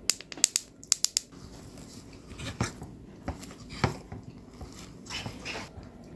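Tableware clicking at a meal: about five quick, sharp clicks in the first second and a bit, then three softer scrapes spaced about a second apart.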